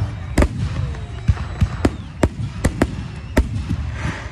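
Fireworks display: a quick, uneven series of about eight sharp bangs from bursting shells.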